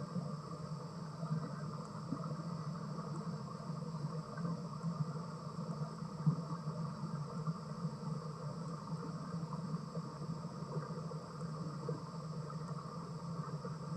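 A steady low hum with a constant hiss above it, unchanging throughout and with no distinct calls or knocks.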